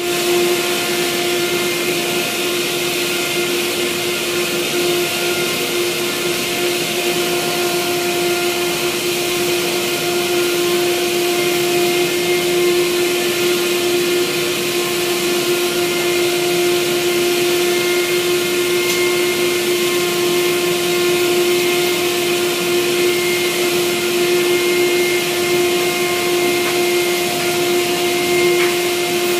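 Vacuum cleaner running steadily, a constant motor whine over the rush of suction, as its hose nozzle is worked over a mattress.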